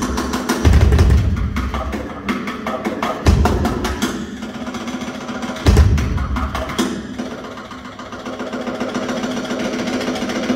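Drum solo on a Ludwig drum kit: fast, dense strokes with a few heavy low drum hits in the first six seconds. It drops to a quieter passage about eight seconds in, then builds again.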